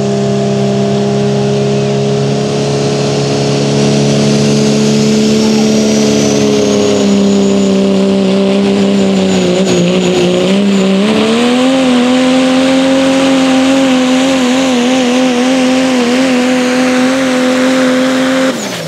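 Turbocharged Pro Stock diesel pickup engine at full throttle pulling a weight-transfer sled, with a high turbo whistle rising over the first several seconds. About halfway the engine note sags under the load, then climbs back and holds with a wavering pitch, cutting off sharply near the end.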